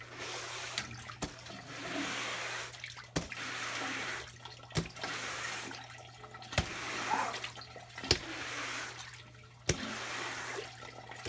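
Shallow floodwater on a basement floor sloshing in a steady rhythm, one swash about every second and a half with a sharp tap at each stroke, over a steady low hum.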